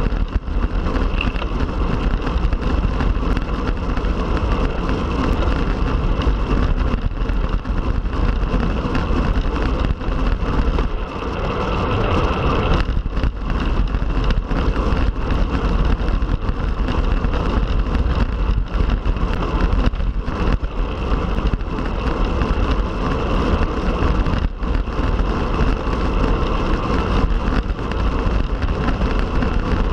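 Wind buffeting the microphone of a road bike ridden at speed: a steady rushing with a heavy low rumble, easing briefly about eleven seconds in.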